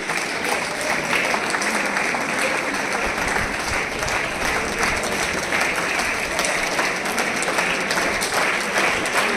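Steady applause from many hands clapping, an even crackle with no break.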